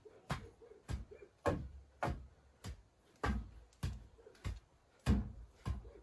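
Steady knocking on a wooden pole, about two sharp strikes a second, each with a short deep thud, as the frame of a bamboo shelter is worked on.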